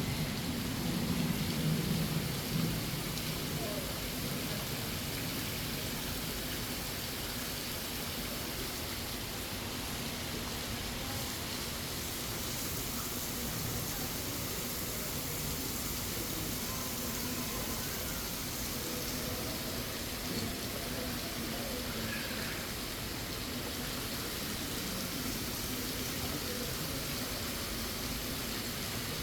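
Steady rushing background noise, like falling water or a ventilation system, with faint, indistinct voices. It is a little louder in the first few seconds.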